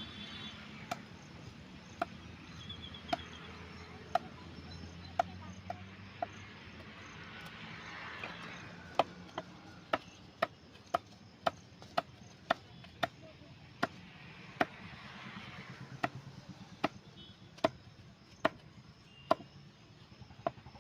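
A series of sharp, evenly spaced chopping strikes, about one a second, quickening to about two a second in the middle before slowing again.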